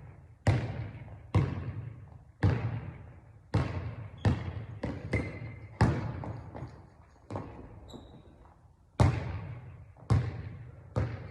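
Basketball being dribbled hard, bouncing on the floor about once a second, each bounce echoing, with a short pause near the end.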